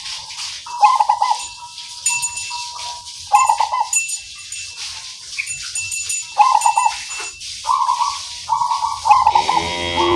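Zebra dove (perkutut) cooing its rolling 'kung' song in short trilled phrases repeated every one to three seconds, with thin high chirps of small birds in the background. Near the end a lower sound with many overtones joins.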